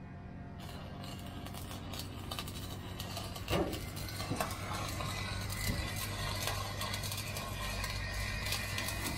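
Stick (arc) welding on a truck's steel chassis: the electrode arc crackling and sizzling steadily over a low hum. A brief thump stands out about three and a half seconds in.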